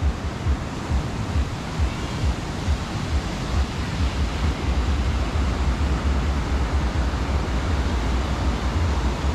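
Sea surf washing on a beach, an even rushing hiss, with wind buffeting the microphone in low rumbling gusts.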